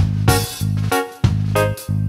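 Background instrumental music with a steady beat.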